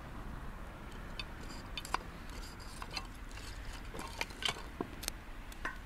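Small kindling fire of dry silver grass and wooden sticks crackling, with irregular sharp pops and ticks over a low hiss.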